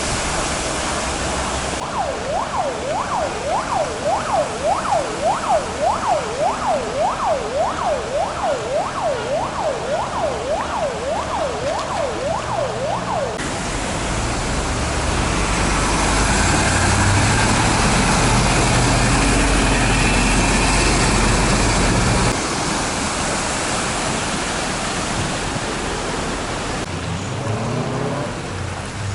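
An emergency vehicle siren in fast rising-and-falling yelps, about two a second, runs for roughly eleven seconds over street noise. It is followed by a deep rumble with hiss, and then steady rushing noise.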